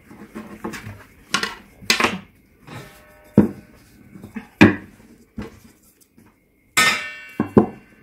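Wooden rolling pins knocking and clattering against a tabletop as yufka dough is rolled out by hand: a string of irregular sharp knocks. The loudest comes near the end, with a brief ringing.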